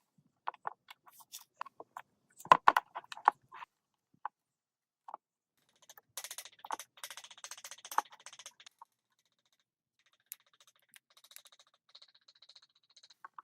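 Scattered sharp clicks and knocks of engine parts and tools being handled on a bench, loudest as a few knocks about two and a half seconds in, then a denser clattering from about six to nine seconds, and faint light ticking near the end.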